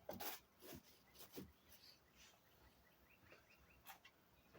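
Quiet ambience with a few faint handling clicks and rustles, and a bird's quick run of about six short chirps a little over three seconds in.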